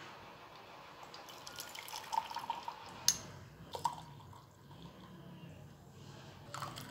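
Hot milky chai poured from a metal saucepan through a metal tea strainer into a steel mug, trickling and dripping. There is a sharp click a little past three seconds and another near four.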